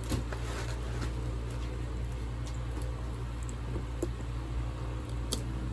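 Light handling of a leather handbag and its strap: soft rubbing and a few small clicks of the strap hardware, the sharpest about five seconds in, over a steady low hum.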